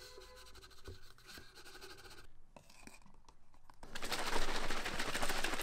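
A plastic scoop scraping and rustling in a tub of protein powder. About four seconds in, a much louder, fast rattling swish follows as a protein shaker bottle is shaken.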